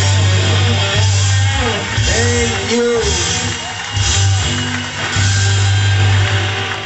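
Live amplified band music: guitar over a strong, steady bass line, with a voice over it.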